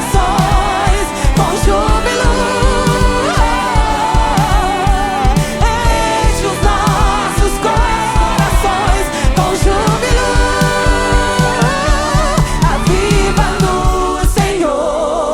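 Live gospel worship music: a band playing to a steady drum beat, with sung vocals over it.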